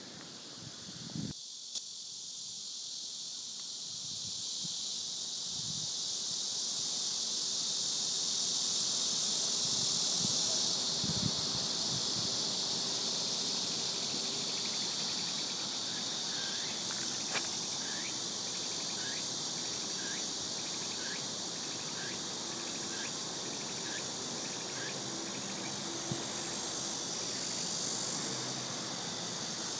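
Steady, high-pitched insect chorus, with a short chirp repeating a little faster than once a second from about halfway through.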